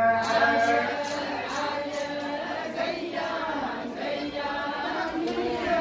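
A group of men and women of the Adi tribe chanting a traditional song together in unison as they dance.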